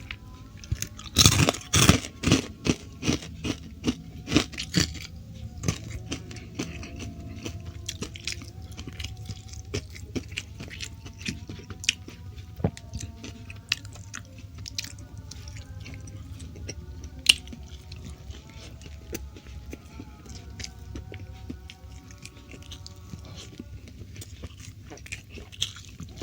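Close-miked eating: loud crisp crunches of biting and chewing crunchy fried food for the first few seconds, settling into quieter chewing with small clicks. Soft background music underneath.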